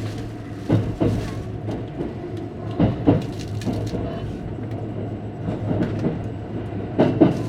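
Thunderbird limited express train running, heard from inside the carriage: a steady low rumble broken three times by a quick double clack as the wheels cross rail joints.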